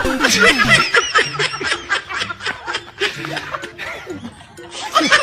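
Laughter: a run of short laughing bursts, several a second.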